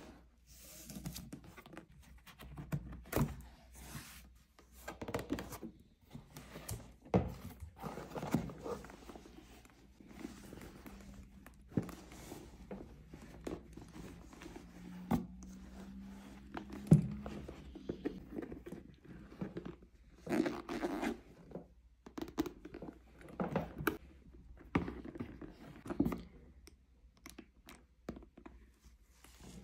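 Unboxing sounds: a satin ribbon being untied, the cardboard box and lid handled with soft thunks and scrapes, and a fabric dust bag rustling as a handbag is drawn out of it. Many short knocks and rustles follow one another, the sharpest knock a little past halfway.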